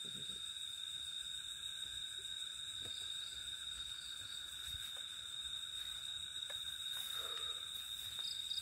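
Night chorus of crickets, a steady unbroken trilling at several high pitches, with a few faint ticks.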